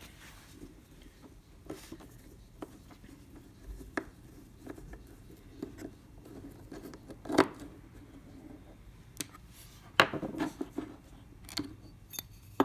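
Small metal parts of a mortise lock clicking and scraping as it is taken apart by hand, with a sharper click about seven seconds in and a quick run of clicks about ten seconds in.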